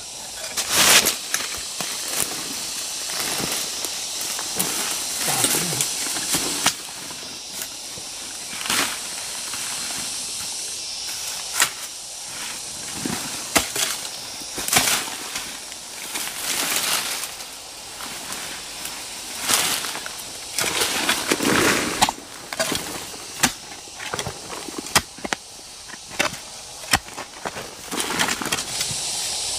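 Hoe blade chopping into soil and roots, irregular strikes a second or two apart, against a steady high hiss.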